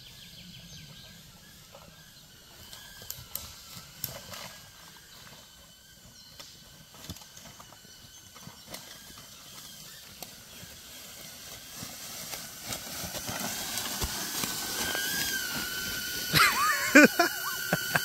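Small camera drone's propellers whining, a steady high whine that wavers and grows louder over the last few seconds as the drone comes closer. Light footsteps rustle in dry leaf litter.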